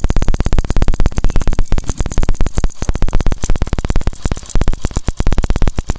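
Hero Passion Pro's single-cylinder four-stroke engine running with a loud, fast, regular clattering like a slack timing chain. It persists despite a new timing chain set, tensioner rollers, bearings and tappet adjustment, and goes away when a 10 mm bolt is loosened.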